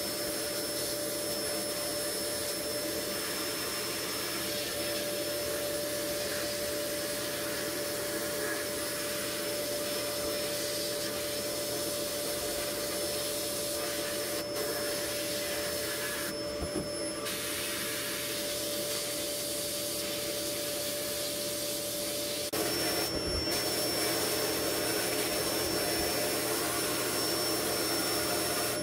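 Sandblasting gun hissing steadily as abrasive blasts rust off a steel Daisy airgun part in a blast cabinet. The hiss lets up briefly twice around the middle and steps up slightly in level about three quarters of the way through.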